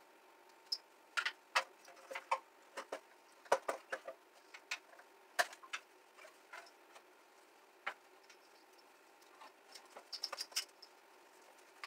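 Irregular clicks and clacks of parts being handled and pulled off a stripped moped's frame, short sharp knocks at uneven intervals with a quick cluster of them near the end.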